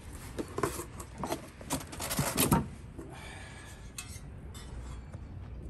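Cardboard box and packaging rustling and scraping as a black-coated car part is lifted out by hand, with light knocks and clinks. The handling is busiest in the first half, loudest a little before halfway, then dies down to quieter fumbling.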